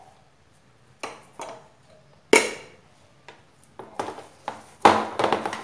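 Metal spoon knocking and scraping against a ceramic bowl while stirring mashed potatoes. A run of clinks starts about a second in, the loudest a little after two seconds, and quicker strokes follow near the end.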